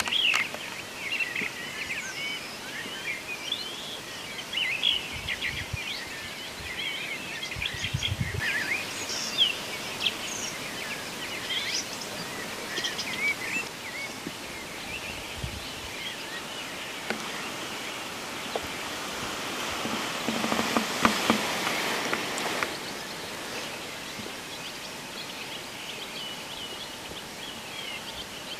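Dawn chorus of songbirds: many short chirps and trills, busiest in the first half, over a steady outdoor hiss, with a brief rustling noise about twenty seconds in.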